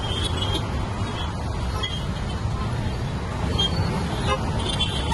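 City traffic heard from a moving vehicle: a steady low rumble of engines and road noise.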